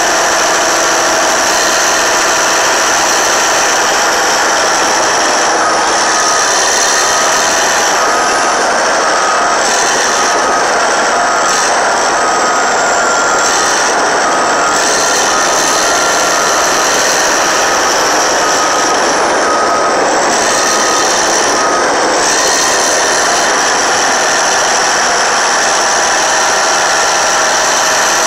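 Caterpillar D8T dozer's C15 ACERT diesel engine running steadily under load while the dozer works, heard close to the exhaust stack. A faint high tone repeats at a steady beat through the middle stretch.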